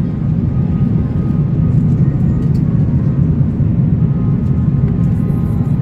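Steady low rumble of engines and rushing airflow inside the cabin of an Airbus A330-300 with Rolls-Royce Trent 772B engines, descending on approach with the flaps extended, with faint steady whining tones above the rumble.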